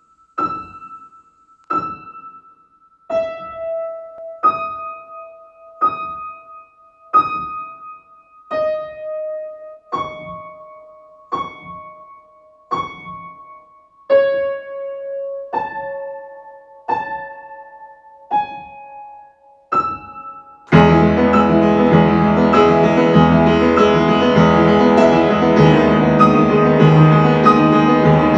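Slow piano music: soft notes, mostly two at a time, struck about every one and a half seconds and each left to ring and fade. About twenty seconds in, a louder, fuller piano-led arrangement with bass comes in.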